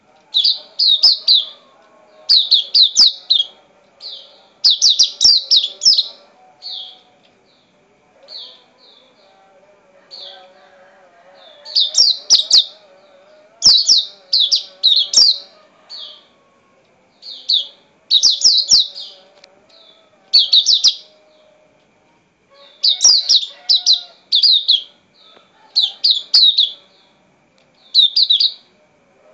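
Caged songbird singing: short bursts of quick, high chirping notes, strung into clusters that repeat every second or two with a few longer pauses.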